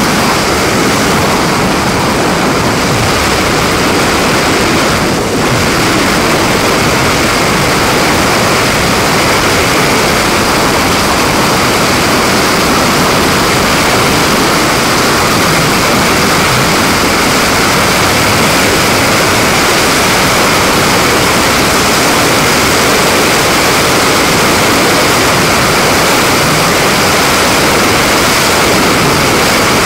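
Freefall wind rushing over the camera's microphone: a loud, steady hiss with no let-up.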